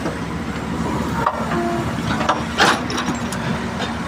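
Heavy machinery running steadily, with a few sharp knocks, the loudest about two and a half seconds in.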